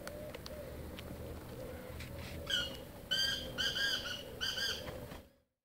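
Black francolin calling: a run of about five short, harsh notes from about two and a half seconds in, then the sound cuts off abruptly near the end.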